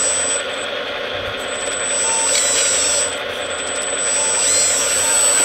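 Hydraulic RC Bobcat loader model working its grapple arm: a steady mechanical whir from its pump and drive, with a high thin whine that cuts out twice and comes back as the arm moves.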